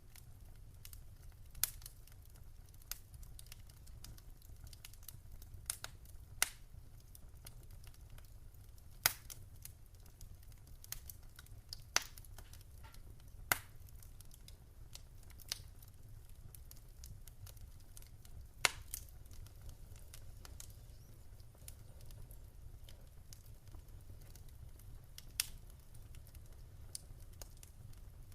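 Wood fire crackling: irregular sharp pops and snaps, a few louder than the rest, over a low steady rumble.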